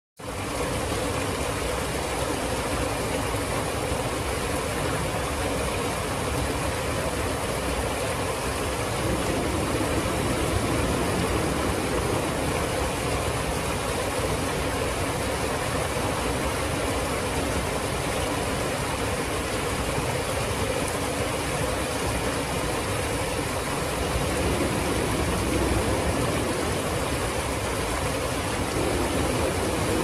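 River water pouring over a small ledge: a steady, unbroken rush.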